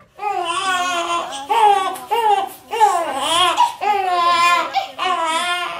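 Newborn baby crying: a run of about six high-pitched, wavering wails, each half a second to a second long, with short breaks between.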